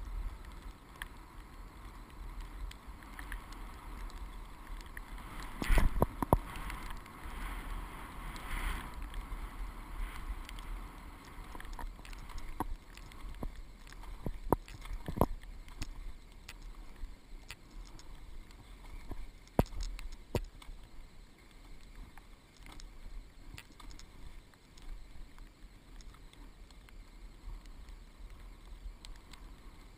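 Skis sliding and hissing over snow on a downhill run, picked up by a helmet-mounted camera, with wind on the microphone and scattered sharp clicks and knocks, the loudest about six seconds in.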